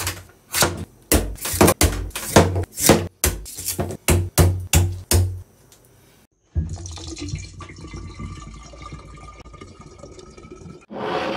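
A large knife chopping repeatedly into the top of a green coconut, about a dozen strikes at roughly two a second. Then coconut water pours steadily from the opened coconut into a glass jug for about four seconds.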